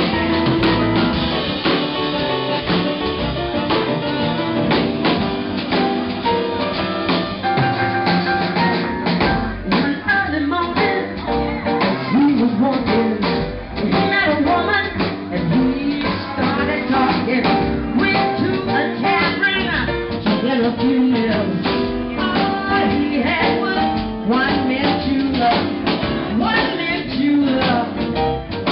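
A woman singing live into a microphone, backed by an upright double bass and a drum kit.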